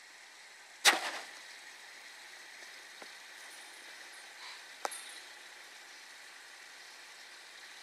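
A sharp clink about a second in, then two much fainter clicks later on, over a steady low hiss.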